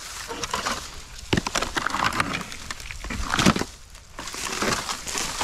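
Irregular crunching and rustling of footsteps and handling in dry ground cover at close range, loudest about three and a half seconds in.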